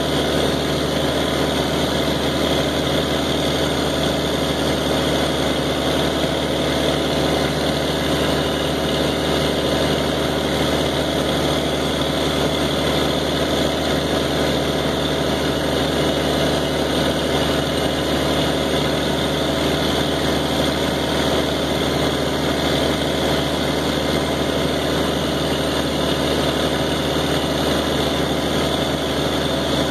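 Engine driving a pressure pump, running steadily at about half throttle under an automatic pressure controller as the pump works up toward its target pressure.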